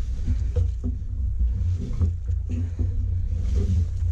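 Polyethylene drop pipe being hauled up out of a steel well casing, giving a few short knocks as it rubs the casing, over a steady heavy low rumble.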